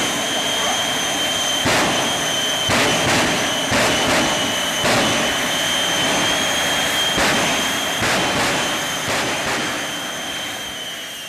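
Military jet aircraft engine running with a steady high-pitched whine over a broad roar. Several short gusts of noise break through it.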